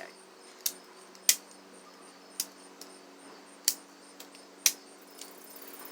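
Gerber MP600 multi-tool being handled and folded: a string of sharp metallic clicks, about seven spread irregularly, three of them loudest, over a faint steady hum.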